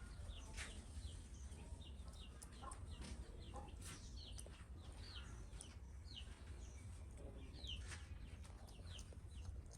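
Birds chirping: short, high, falling peeps repeating about two or three times a second, with scattered faint clicks over a low steady hum.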